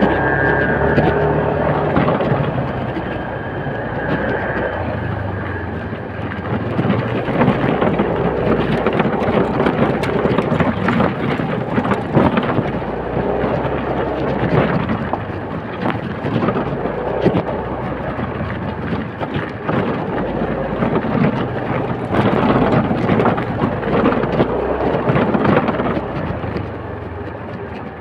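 Motorcycle running while riding, its engine hum buried under heavy wind rumble and buffeting on the microphone.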